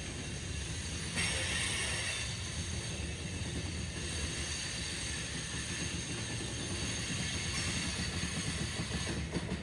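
Freight train rolling past, a steady low rumble of wheels on the rails, with a brief burst of hiss about a second in.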